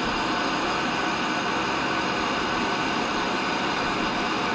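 No. 2 tool and cutter grinder running steadily, its motor and spinning grinding wheel giving an even whine with several steady tones over a hiss.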